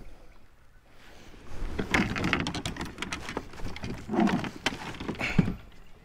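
Handling noise on a plastic kayak: irregular knocks, clatter and rustling as gear and the fish are moved about on the deck, in three louder bunches beginning about a second and a half in.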